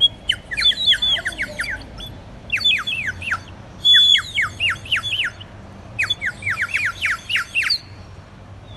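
Bird-like chirping: repeated bursts of quick downward-sliding whistles, several per burst, each burst about a second long.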